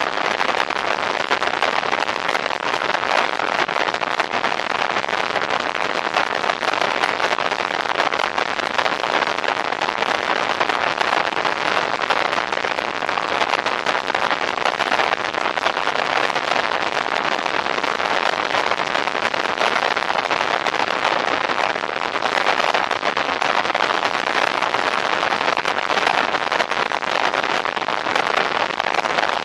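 Steady riding noise from a Can-Am three-wheeled motorcycle under way at road speed: a constant rush of wind over the microphone with a fine crackling texture, and no clear engine note above it.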